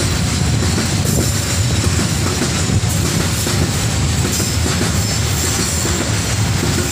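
Freight train of flat wagons loaded with steel coils rolling past close by: a steady, heavy rumble of wheels on rail, with a few faint clacks over the rail joints.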